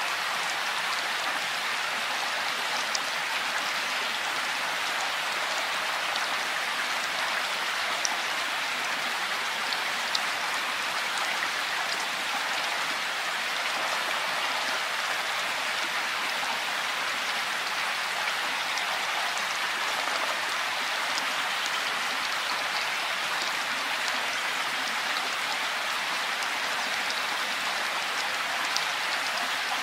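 Steady rain falling, an even hiss with a few sharper drop ticks scattered through it.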